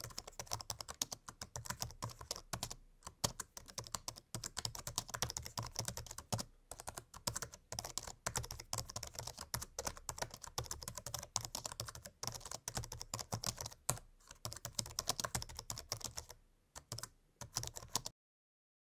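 Typing on a MacBook laptop keyboard: a fast, uneven run of light key clicks with brief pauses, stopping shortly before the end.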